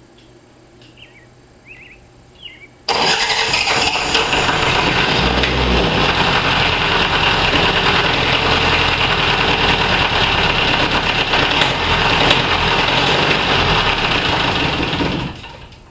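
An old Lister diesel engine comes on suddenly about three seconds in and runs loudly and steadily for about twelve seconds, then stops shortly before the end. A few faint bird chirps come before it.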